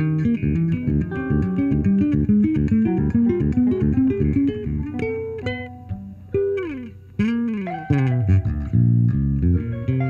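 Headless electric bass and hollow-body archtop electric guitar playing an instrumental duo passage: quick runs of plucked notes, two notes sliding down in pitch about six and seven seconds in, then low held bass notes near the end.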